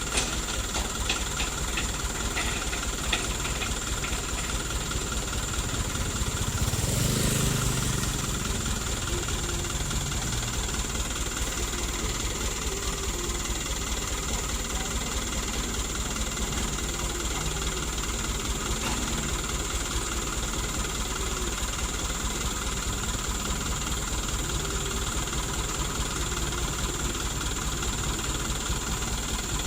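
Vehicle engine idling steadily. About seven seconds in, a louder swell of engine and road noise passes, as of a vehicle moving close by.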